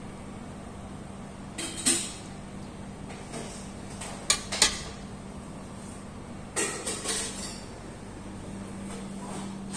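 Metal ladle clinking against a stainless-steel cooking pot while stew is ladled out: a sharp clink about two seconds in, a quick pair near the middle, and a short cluster later, over a steady low hum.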